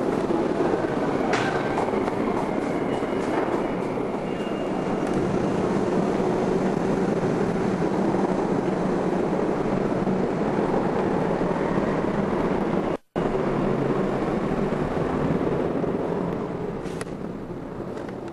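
New York City subway train running, a steady loud rumble. The sound cuts out for a moment about two-thirds of the way through.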